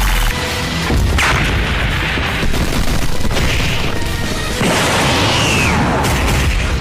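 Background music under cartoon fight sound effects: booming blasts and impacts, with a sharp hit about a second in and a falling whoosh about five seconds in.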